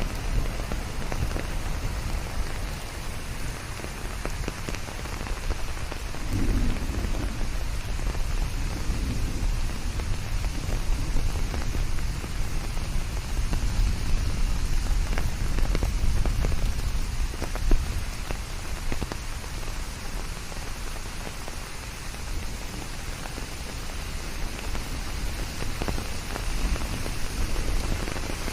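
Steady rain falling, blended with an even hiss of white noise, with low rumbles of thunder about six to nine seconds in.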